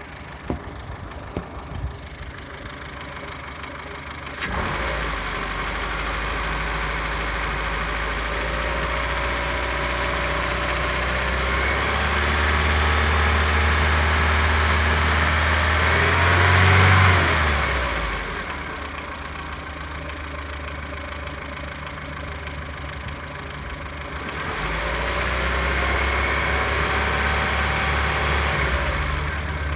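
A 2003 Ford Fusion's 1.4-litre petrol four-cylinder engine starts about four seconds in and runs. Its speed rises to a peak about two-thirds of the way through, drops back to idle, and rises again near the end. The owner is chasing a ticking noise from the timing-belt end, with the auxiliary belt and water pump already ruled out.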